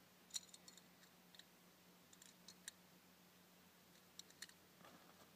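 Faint, irregular small metallic clicks of .22 LR cartridges being pressed one at a time into a rifle magazine, the sharpest click just under half a second in.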